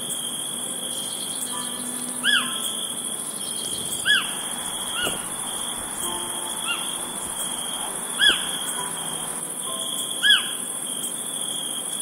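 Insects trilling steadily, with a bird repeating a short whistled note that rises and falls, about five times, each note the loudest thing heard.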